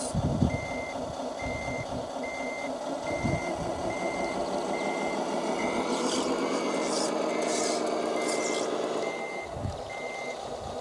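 Radio-controlled Tamiya Scania truck's sound unit playing a reversing beeper: one steady high beep about every 0.7 s while the truck backs up, over a simulated diesel engine sound that rises about six seconds in and settles back shortly before the beeping stops.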